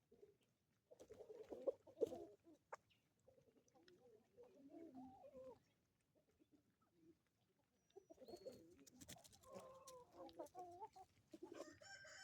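A flock of chickens clucking quietly, in scattered groups of calls about a second in, again from about three to five and a half seconds in, and from about eight seconds in.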